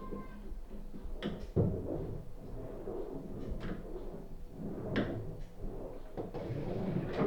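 Vacuum cleaner dragged back and forth over a laminate floor in the flat above, heard through the ceiling as a low rumble. About five sharp knocks as it bumps the floor and skirting boards; the loudest is about a second and a half in.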